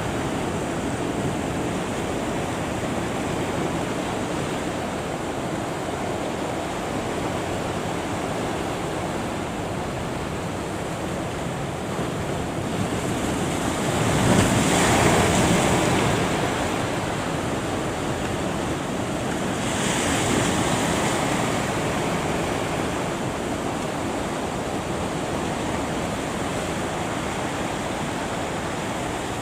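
Ocean surf breaking with a steady rush of water and wind buffeting the microphone; a big wave crashes about halfway through, and a smaller one a few seconds later.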